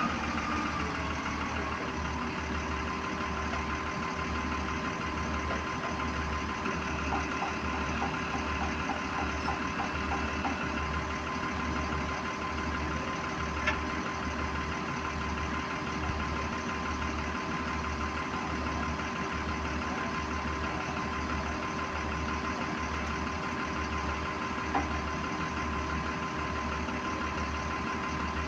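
A machine or engine running steadily at an even pace, with a slow regular low throb and a constant hum. Two short sharp clicks sound over it, one about halfway through and one near the end.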